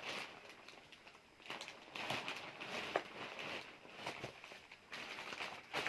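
Handling of a parcel's packaging: irregular rustling with a few sharp clicks and knocks, the loudest about two, three and six seconds in.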